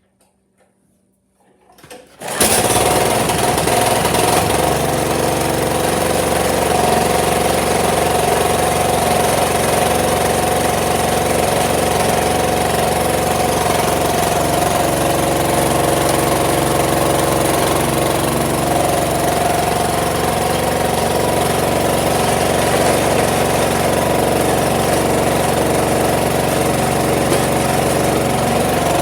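MTD Pro 30-inch two-stage snowblower's 357cc single-cylinder engine running loudly and steadily, cutting in suddenly about two seconds in. This is its shakedown run after the no-spark fault from taped-off kill wires and a stuck carburettor float were fixed.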